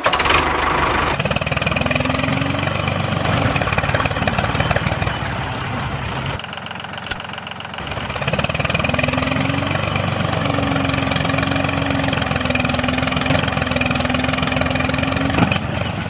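Toy remote-control tractor running with a steady engine-like chugging of fast even pulses, dipping briefly about halfway through. A steady whine joins in about two seconds in and again from about nine seconds until near the end.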